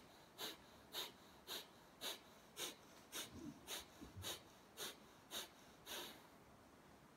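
Kapalabhati pranayama: a rapid, even series of sharp, forceful out-breaths through the nose, about two a second, a dozen or so in all, stopping about six seconds in.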